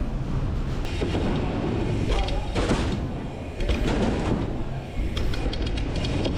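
Dirt-jump bike riding a jump line: steady low rumble of tyres on dirt and ride noise, with a run of clicks and rattles near the end.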